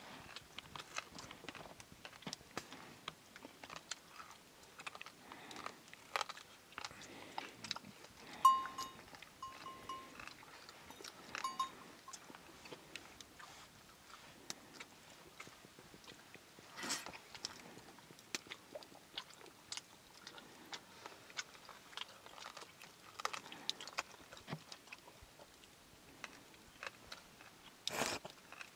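Close-up chewing and biting of food, with irregular small crunches and clicks. A brief pitched ringing tone sounds a few times about nine to twelve seconds in.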